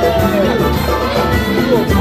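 Loud music with a steady bass beat, and a crowd's voices talking over it.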